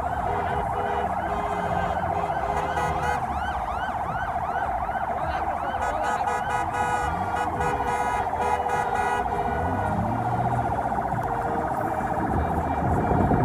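Several vehicle sirens sounding at once: one fast warbling tone runs throughout, and over about the first half a second siren yelps in quick repeated rise-and-fall sweeps.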